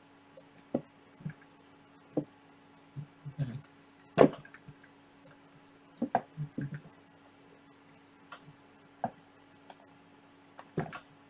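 Irregular clicks and knocks from the stiff ball-jointed legs of a Joby GorillaPod 5K tripod being bent and repositioned by hand, with one louder knock about four seconds in.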